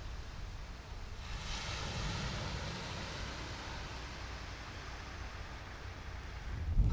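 Outdoor background noise: a steady hiss over a low rumble, swelling for a couple of seconds about a second in, with a louder low bump near the end.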